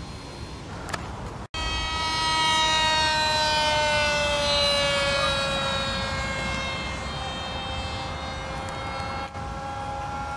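Brushless electric motor and propeller of an RC plane flying overhead, a high whine that starts suddenly about a second and a half in, is loudest soon after, and falls slowly in pitch before holding steadier and quieter. Wind noise rumbles underneath.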